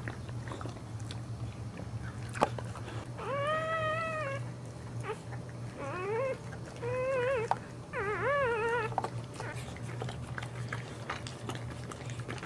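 Newborn boxer puppy crying in four high, wavering squeals between about three and nine seconds in, the first one longer and arched in pitch. Behind them are wet clicks and rustles as the mother licks the newborn clean.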